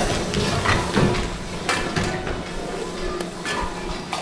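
Kitchen clatter of pots, pans and utensils, a run of irregular knocks and clinks over a steady noisy haze.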